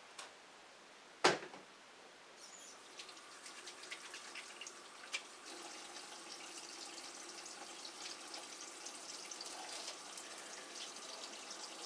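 Kitchen tap running into a sink, water splashing and spattering as hands work under it. A sharp knock about a second in is the loudest sound.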